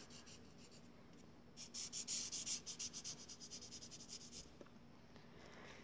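Coloured pencil scratching on paper in rapid back-and-forth shading strokes, starting about a second and a half in and stopping near the end.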